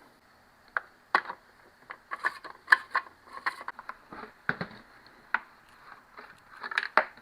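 Irregular clicks and light clatter of hands fitting the bar and chain onto a small cordless chainsaw, the sharpest click a little under three seconds in.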